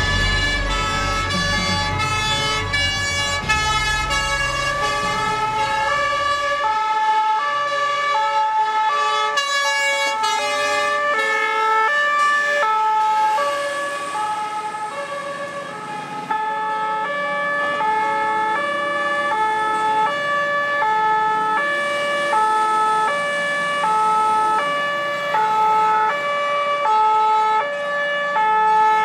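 Fire engine's two-tone siren alternating steadily between a high and a low note, each held for under a second. A heavy engine rumble sounds under it for the first few seconds as the truck pulls out.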